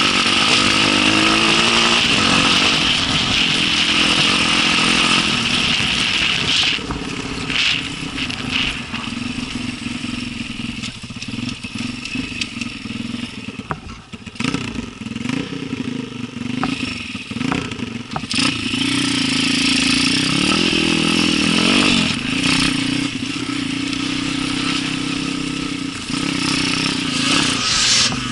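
Enduro dirt bike engine running hard under throttle for the first several seconds, then eased off to low revs with scattered clatter. From about eighteen seconds it pulls with a steady note again.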